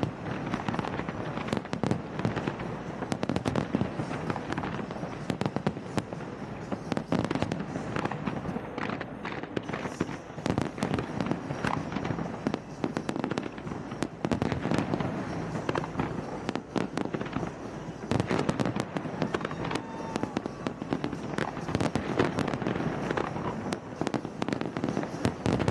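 Fireworks display: a dense barrage of bangs from bursting shells, one after another with many overlapping, throughout.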